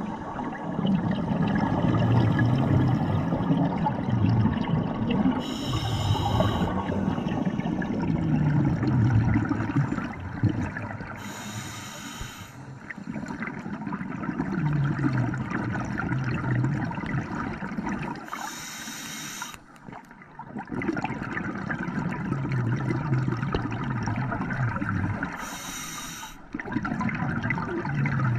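Scuba diver breathing through a regulator underwater: a short hiss on each inhale, four times about seven seconds apart, each followed by the low bubbling rumble of exhaled air.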